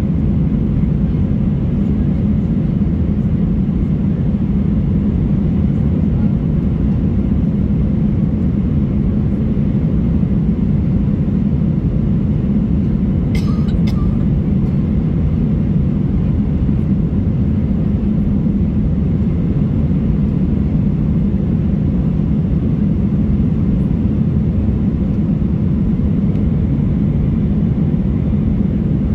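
Steady low drone of an airliner cabin in climb: jet engines and airflow over the fuselage, heard inside the cabin. A brief faint click about halfway through.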